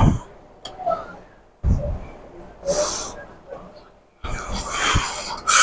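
A man breathing hard after a set of weighted dips, catching his breath. There are several heavy, noisy breaths, and the loudest comes near the end.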